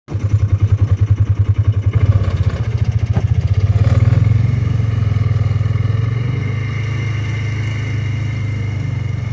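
Utility vehicle's engine running, with a heavy, uneven pulse for the first two seconds and then a steadier drone; a thin whine rises over it from about four seconds in.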